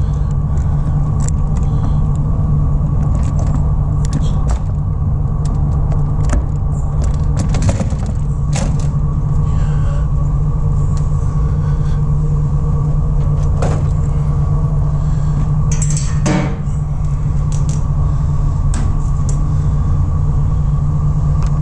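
Scattered clicks and key jingles from unlocking and working the latches of a box van's rear cargo doors. Under them runs a steady low mechanical hum with a faint steady whine.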